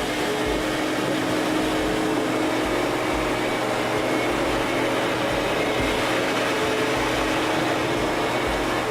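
Sirena water-filtration vacuum cleaner running steadily with an even rushing hum as it is passed over carpet, sucking up loose dog fur.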